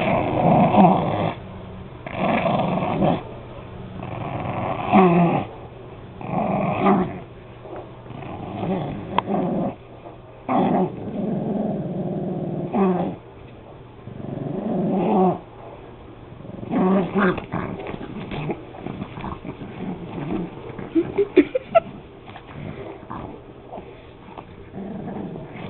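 Pug growling in play as it bites and tugs at a slipper: a string of growls, each a second or two long with short breaks between, turning into shorter, choppier sounds in the last third.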